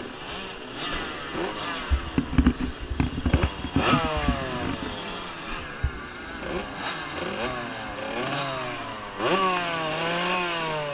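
Several motocross bikes revving at the start gate, their engines rising and falling in pitch in repeated overlapping blips, loudest about nine seconds in. A run of low thumps comes about two to four seconds in.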